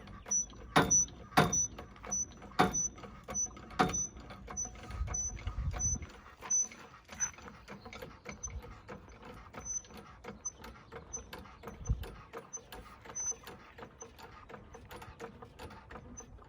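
Floor jack being pumped to lift a car. A few loud clanks come in the first four seconds, then a run of quicker, lighter clicks with a short high squeak on each.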